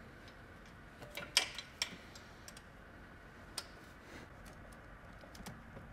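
A few faint, sharp, separate clicks and taps, the clearest about a second and a half in, again just before two seconds and near three and a half seconds: a hand wrench working the M10 gearbox bellhousing bolts, tightened by feel to about 45 Nm.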